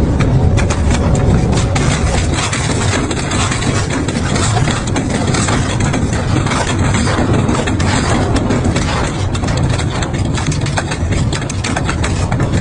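Double-shaft shredder chewing up a small steel bicycle: the motor and cutter shafts run under load with a steady, heavy grind, broken by frequent cracks and snaps as the frame, wheel and handlebars are torn apart.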